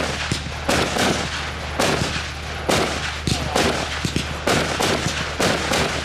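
Firework display: aerial shells bursting in quick succession, a loud bang roughly every second, each with an echoing tail, and smaller reports between them.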